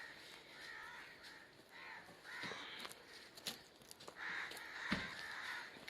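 Crows cawing repeatedly, with calls following one another throughout. A few sharp clicks and a single low thump about five seconds in.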